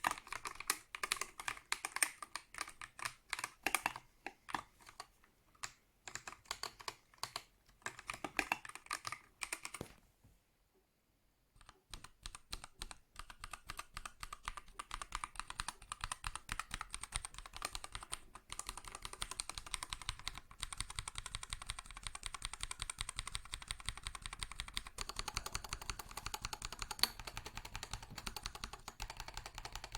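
Typing on an Akko World Tour Tokyo R2 3098 mechanical keyboard. Keystrokes come unevenly at first, stop for about two seconds a third of the way in, then resume as fast, continuous typing.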